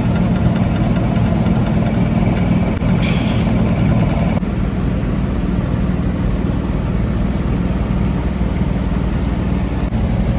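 A steady, loud, low mechanical hum that drones on without a break.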